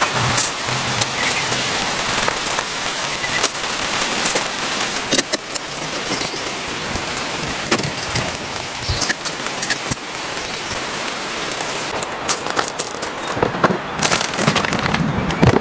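Steady rain falling, with many sharp taps of drops striking a surface.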